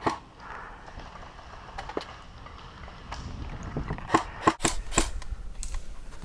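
Airsoft rifle shots: a few sharp snaps, most of them bunched together about four to five seconds in, over a low rustle of movement.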